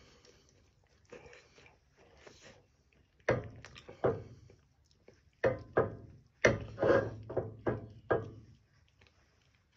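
Dull knocks and thumps, about nine in an uneven run starting about three seconds in, as food is handled in a stainless-steel skillet on the stove.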